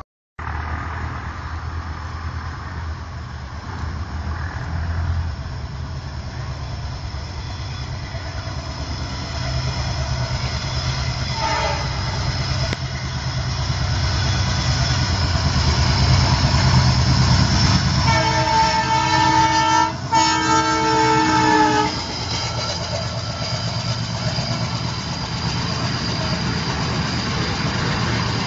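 WDM-3D diesel locomotive hauling a long parcel train, approaching and passing at speed. The engine's low rumble grows louder, with a short horn toot about 11 seconds in and two long horn blasts from about 18 to 22 seconds. The rumble and clatter of the coaches going by follow.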